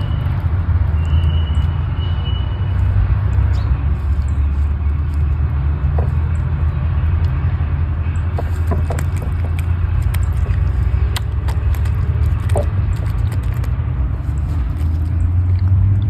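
Steady low rumble, with scattered faint clicks and ticks partway through.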